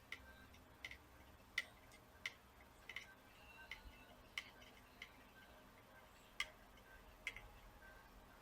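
Faint, sharp clicks of a soldering iron tip and tools touching the pins of a small surface-mount chip on a circuit board during hand soldering, coming about every three-quarters of a second with a pause of about two seconds in the middle.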